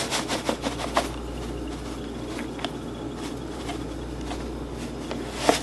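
Kitchen handling sounds while seasoning chicken in a pot: a quick run of light clicks and taps in the first second, then a few scattered ticks, over a steady low hum.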